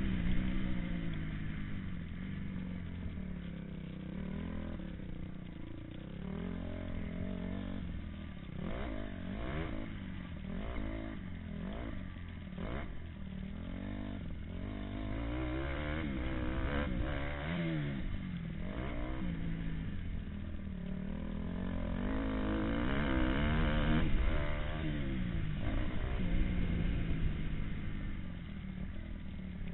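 Motocross bike engine heard from the rider's helmet while racing, revving up and dropping back again and again through throttle and gear changes, busiest in the middle of the stretch.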